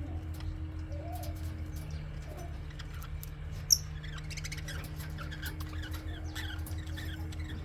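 Budgerigars chirping and warbling, with one sharp, high squeak about three and a half seconds in, over a steady low hum.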